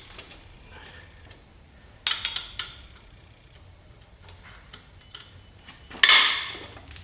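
Metal engine parts being handled and set down: a quick run of light clinks about two seconds in, then a loud ringing clang near the end that rings on for about a second, with faint ticks between.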